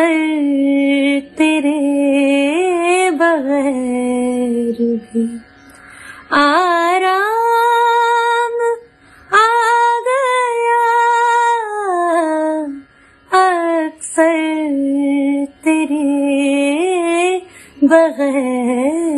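A woman singing a ghazal unaccompanied, in several long phrases with long held notes and fine ornamental turns in pitch, pausing briefly for breath between phrases.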